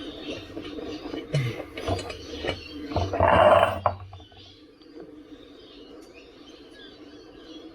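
Rubber tyre and inner tube being handled and worked onto the wheel by hand: scattered squeaks, rubs and light knocks, with one loud rubbing scrape about three seconds in.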